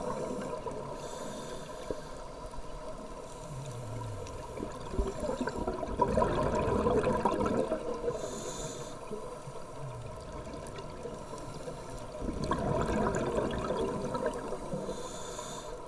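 Scuba diver breathing through a regulator underwater: a short hiss on each inhale, then a longer rush of exhaust bubbles on the exhale, repeating about every seven seconds.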